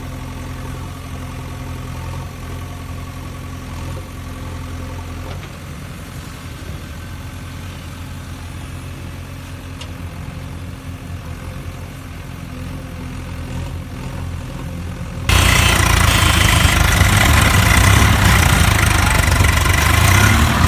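Tractor engine idling steadily, then a much louder, harsher engine sound cuts in abruptly about fifteen seconds in.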